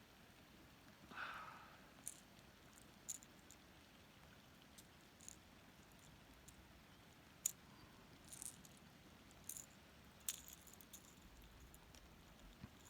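Near silence broken by faint, irregular small clicks and light rattles from fishing tackle being handled, with a brief soft rustle about a second in.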